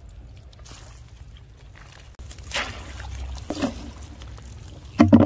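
Shallow muddy water sloshing and splashing as someone wades and reaches into the mud, over a steady low rumble. A brief loud vocal sound comes near the end.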